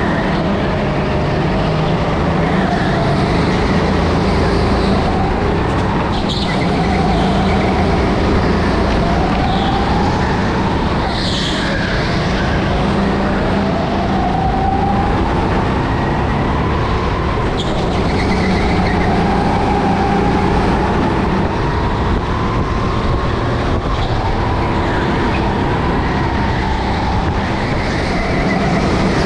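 Rental go-kart's petrol engine, heard from the driver's seat, running hard, its pitch rising and falling every few seconds as it accelerates out of corners and backs off into them. A few brief high squeaks come through over it.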